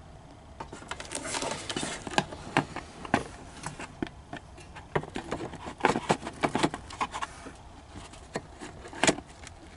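Irregular clicks, taps and short scrapes of a tape pancake's plastic hub being handled and shifted on a metal reel flange while it is lined up with the screw holes, with one sharper click near the end.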